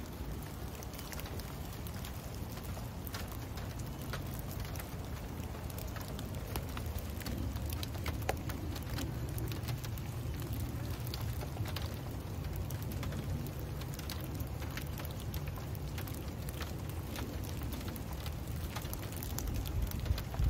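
Steady rain falling, with many small drop ticks over an even hiss and a low steady rumble underneath.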